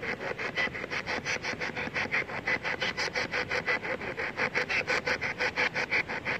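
Spirit box radio sweeping through stations: static chopped into short, even bursts, about six or seven a second.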